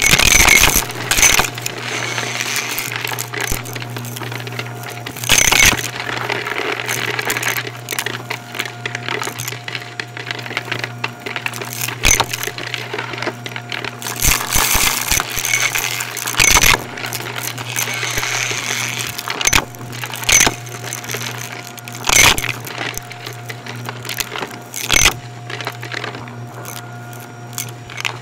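Shark Navigator upright vacuum running with a steady motor hum while it sucks up crunchy debris, which crackles and rattles through it in repeated louder bursts.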